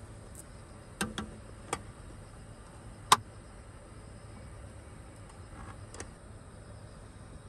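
A handful of sharp clicks and knocks, the loudest about three seconds in, over a steady high-pitched chirring of insects.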